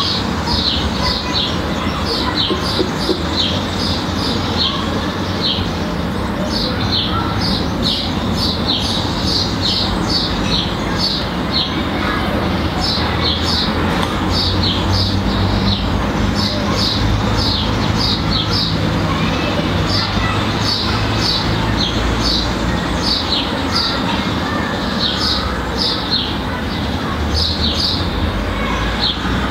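Small birds chirping, short high chirps several times a second in irregular runs, over steady low background noise.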